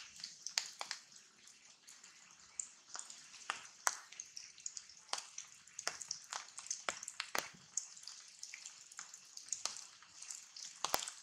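Rain dripping onto leaves: irregular drops and taps, several a second, over a faint steady hiss.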